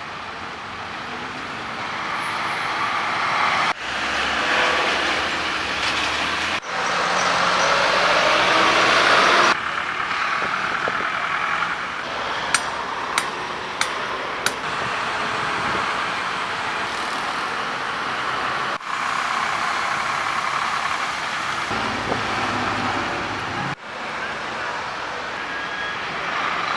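Street traffic: vehicle and truck engines running with tyre noise, in several cut-together stretches, with four sharp clicks around the middle.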